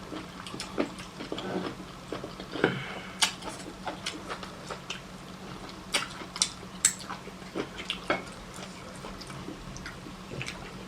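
Eating at a table: scattered light clicks and clinks of dishes and utensils, with a low steady hum underneath.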